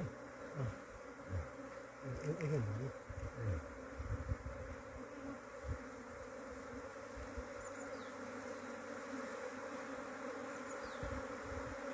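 A mass of honeybees buzzing in a steady, even drone, with a few low knocks in the first half.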